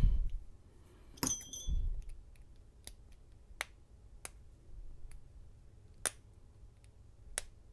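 Small metal parts of a lock cylinder being handled while it is pinned up for rekeying: a light metallic clink with a brief ring about a second in, then sparse single clicks and ticks, roughly one every second or so.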